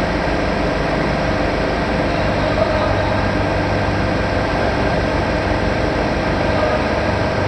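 Industrial machinery running steadily: a loud, continuous mechanical hum and noise with no distinct knocks.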